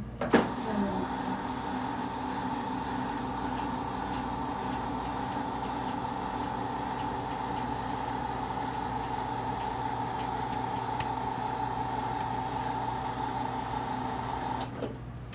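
Electric hospital bed's lift motor raising the bed to waist height, a steady motor hum. It starts with a sharp click and cuts off shortly before the end.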